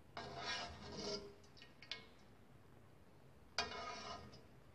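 Slotted ladle scraping and knocking against the inside of a nonstick cooking pot, twice, as boiled vegetables are scooped out of their cooking water. The second scrape starts with a sharp knock.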